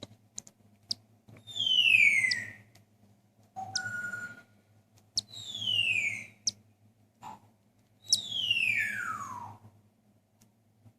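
Cockatiel giving three loud whistled calls, each sliding steeply downward in pitch over about a second; the last one falls furthest. A shorter chirp comes between the first two, and soft clicks and a low steady hum run underneath.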